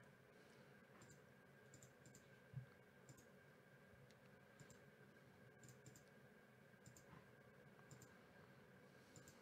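Near silence with faint, scattered computer mouse clicks, several in quick pairs, over a faint steady hum. There is one soft low thump about two and a half seconds in.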